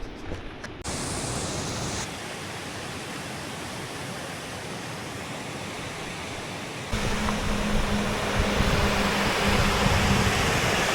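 Steady outdoor rushing noise that changes abruptly about one, two and seven seconds in, and is louder from seven seconds on.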